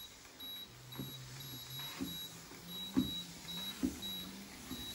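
Urevo U1 walking pad's belt motor running at its lowest speed with a low hum that steps up in pitch about two seconds in. Footsteps land on the moving belt about once a second.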